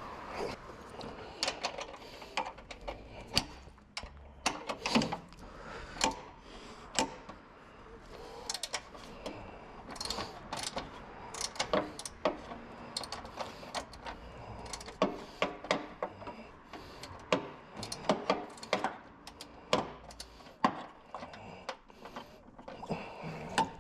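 Hand tools working on a car's engine bay: irregular sharp metallic clicks and knocks, one or two a second, sometimes in quick clusters.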